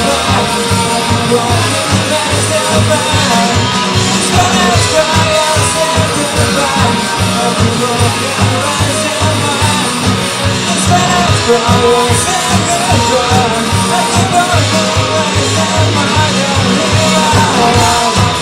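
A rock band playing live and loud, with a singer's voice over guitars, bass and a steady drum beat.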